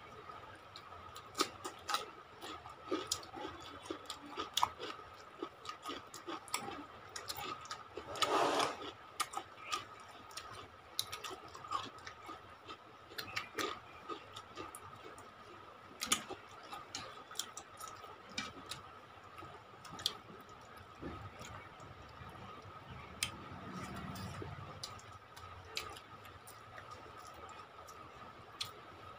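People eating rice and chicken curry with their hands: scattered wet clicks and smacks of chewing and of fingers working the rice, with one longer, louder smack about eight seconds in. A faint steady whine runs underneath.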